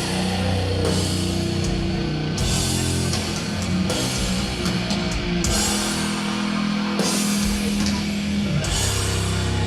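Doom metal band playing live: heavily distorted, low guitars and bass hold long chords over slow drums. Cymbal crashes come about every second and a half.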